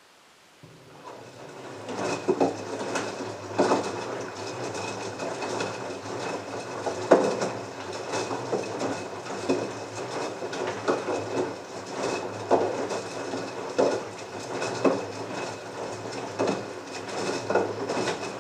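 LG front-loading washing machine drum starting up from a pause about half a second in, its motor humming with a faint steady whine while the wet load tumbles, dropping and sloshing with a dull thud every second or so. This is the main wash at 40°C, holding the water at temperature.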